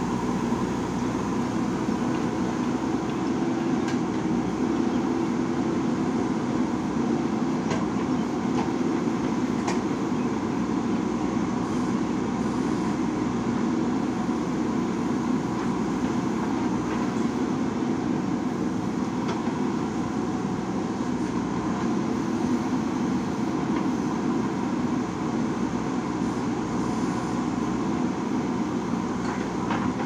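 JCB backhoe loader's diesel engine running steadily as the backhoe arm digs and dumps soil, a constant drone, with a few faint clicks.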